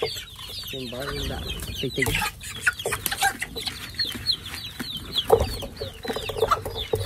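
A flock of young meat chickens clucking and peeping in many short, high, falling chirps, with brief rustles and knocks as mixed feed is tipped from a plastic bucket.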